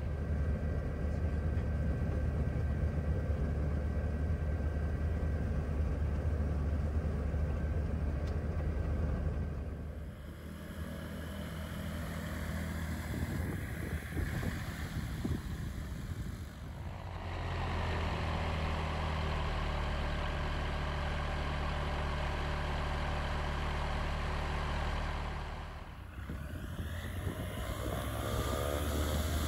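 FK-9 light airplane's Rotax engine and propeller running steadily, in several short segments joined by abrupt cuts. Near the end the engine's pitch rises.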